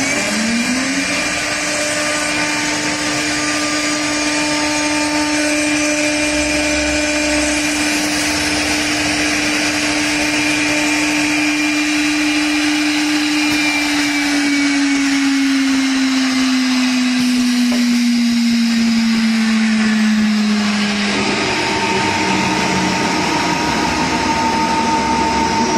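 High-speed electric spindle motor of a CNC door hinge machine, coming up to speed at the start and then whining steadily. About halfway through its pitch slowly sinks for several seconds, and near the end a different, higher motor tone takes over.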